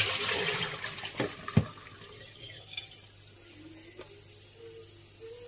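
Water splashing and running for about two seconds, then fading, with two sharp knocks about a second and a half in.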